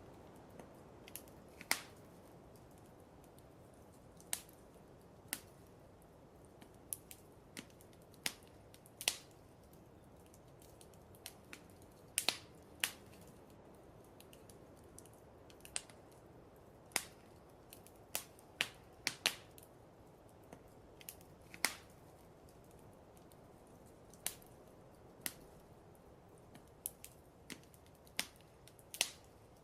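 Wood fire crackling in a fireplace: irregular sharp pops and snaps, a few every couple of seconds and of varying strength, over a faint steady hiss.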